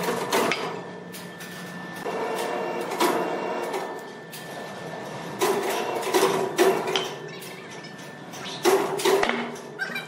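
Sawmill machinery noise: a steady hum with irregular knocks and clatter, the sharpest knocks coming in pairs about six and nine seconds in.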